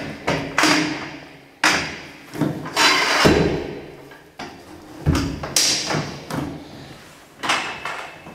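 Metal load-lock cargo bars knocking and clanking as they are set against the inner wall of a refrigerated trailer: a series of sharp knocks about once a second, each ringing on briefly in the hollow trailer box.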